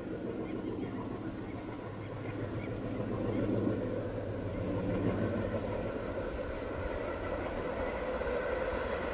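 WDM3D diesel locomotive running at speed with a few coaches, a steady engine drone over the rumble of wheels on the track, growing a little louder about three seconds in.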